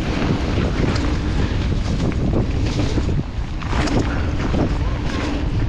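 Wind rushing over the microphone of a mountain bike moving along a trail, with scattered knocks and rattles from the bike over bumps.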